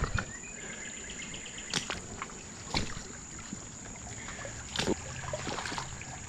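A person wading across a shallow, rocky creek: four scattered knocks and splashes from steps on the stones, over the creek's flowing water and a steady high-pitched hum.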